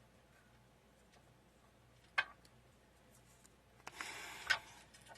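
Tarot cards being handled on a table: a single sharp click about two seconds in, then a rustle of about a second near the end, like a card sliding, with another click in it.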